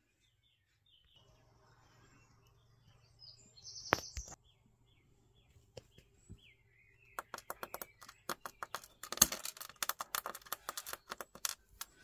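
Small tactile switches clicking and clattering against a steel workbench as they are pushed around by hand: a quick run of sharp clicks in the second half, loudest about three-quarters of the way in. Faint bird chirps can be heard before the clicks start, with a single sharp click about a third of the way in.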